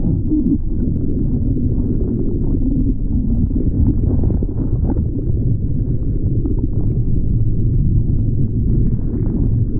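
Continuous, muffled low sloshing and splashing of sea water as a surfer paddles a surfboard with the hands, heard right at the water's surface.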